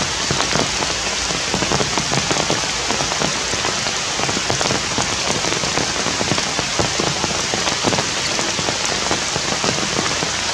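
Steady rain falling, fairly loud, with the sharp taps of many single drops striking nearby surfaces.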